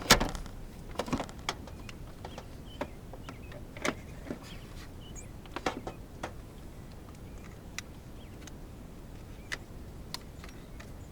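A sharp knock at the start, then scattered light clicks and knocks of hands working around the car, with no engine cranking or running.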